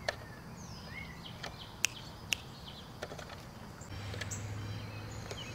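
Birds chirping in short sliding calls over a faint outdoor background, with a few sharp clicks. A low steady hum comes in about four seconds in.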